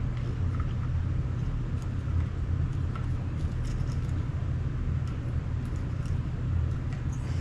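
A steady low rumble with faint scattered small clicks of metal parts as a spring is worked into a shotgun trigger housing with needle-nose pliers.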